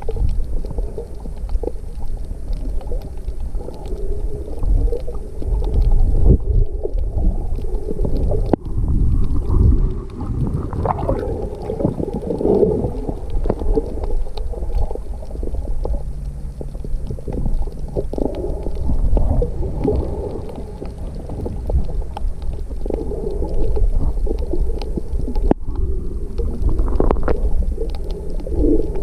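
Muffled underwater rumble and gurgling of water moving against a submerged camera, a steady low noise that swells and eases.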